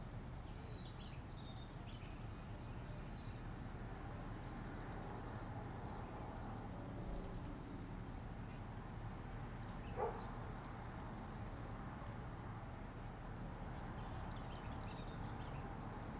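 Outdoor ambience: a steady low rumble under a small bird's short high trill, repeated about five times every three to four seconds. One brief, louder sound stands out about ten seconds in.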